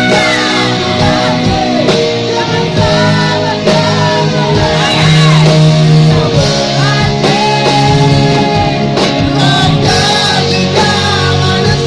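Rock song: a singer over a band with guitar and drums.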